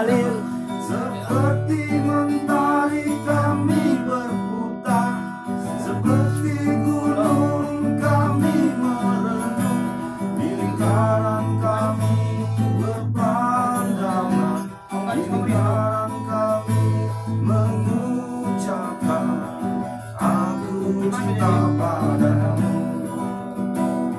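Cutaway acoustic guitar being strummed, with chords changing every couple of seconds, accompanying a man singing a wavering, sustained melody.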